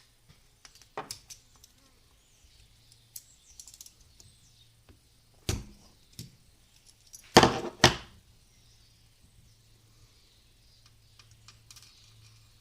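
Scattered clicks and clinks of small metal carburetor parts and hand tools being handled during disassembly of a Honda CL100 carburetor. There is a sharp knock about five seconds in and a louder clatter of two or three knocks about halfway through.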